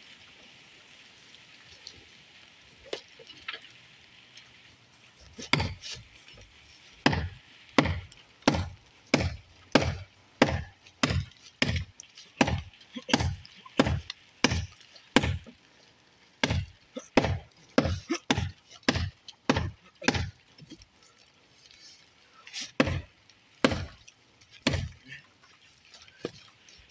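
Axe chopping into a wooden post: a long run of sharp blows starting about five seconds in, roughly one every two-thirds of a second, then a few more widely spaced blows near the end.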